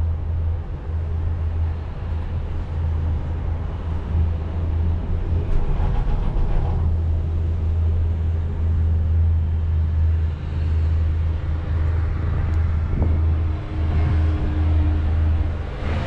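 Steady low rumble and running noise inside a moving Disney Skyliner gondola cabin as it travels along its cable. About thirteen seconds in, a steady hum joins it.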